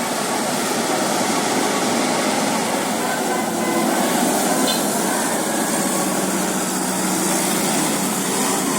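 Steady traffic noise: vehicle engines running with road noise, and no horn sounding.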